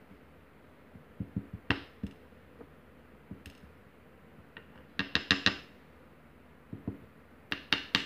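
Small, sharp metal clicks and taps as key pins are shaken out of a pin-tumbler lock plug and drop onto a pin tray: a few scattered clicks, then a quick run of about five about five seconds in, and a couple more near the end.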